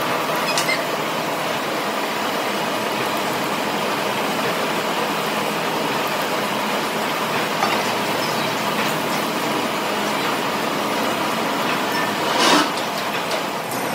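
Steady machinery noise with a few faint clicks, and one brief louder burst of noise near the end.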